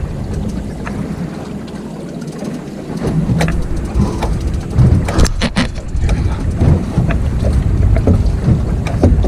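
Wind buffeting the microphone aboard a boat at sea, a rough low rumble that eases for a couple of seconds near the start. A cluster of sharp clicks and knocks comes a little past halfway.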